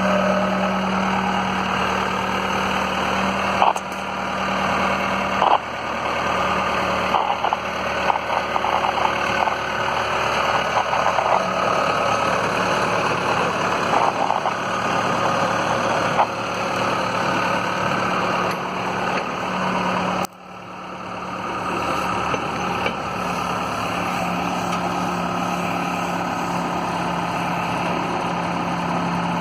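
Case 580L backhoe's diesel engine running at a steady idle, with a few short knocks in the first half. The sound drops out abruptly for a moment about two-thirds of the way through, then the engine is heard again.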